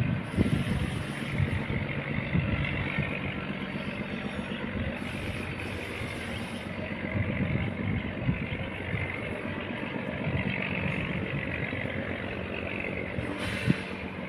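Diesel engine of a heavily laden sand barge running hard at a steady pitch as it pushes against a strong current, with one sharp click near the end.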